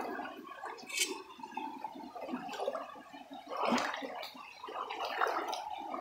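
Shallow rocky stream running and splashing over stones, with a brief louder splash about four seconds in.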